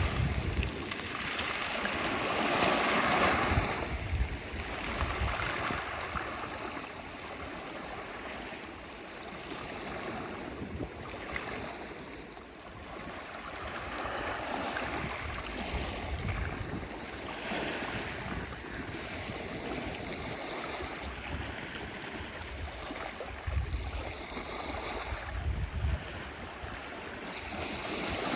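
Sea waves washing in and drawing back, swelling and fading every few seconds, with gusts of wind rumbling on the microphone.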